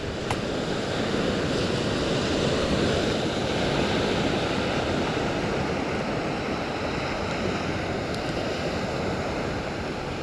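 Ocean surf washing onto a sandy beach: a steady rush that swells slightly a few seconds in.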